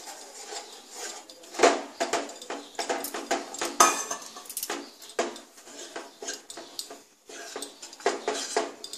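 Metal spoon stirring custard powder into cold water in a bowl, clinking and scraping against the bowl in quick, irregular strokes as the powder is worked into a thin batter.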